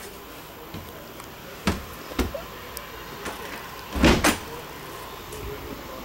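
A few sharp knocks, then a louder double knock or rattle about four seconds in, over faint steady background noise.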